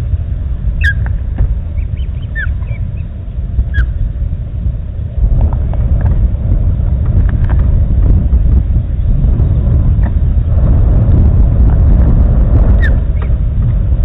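Wind buffeting the nest camera's microphone in a steady low rumble that grows louder about five seconds in. A few short, high bird chirps come through, three in the first four seconds and one near the end.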